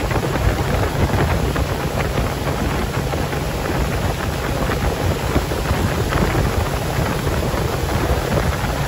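Motorboat under way: a steady engine hum beneath wind buffeting the microphone and water rushing past the hull.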